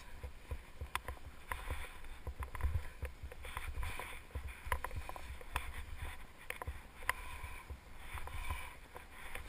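Skis running through deep powder snow, a rushing swish, with wind buffeting the action camera's microphone and scattered sharp clicks and knocks.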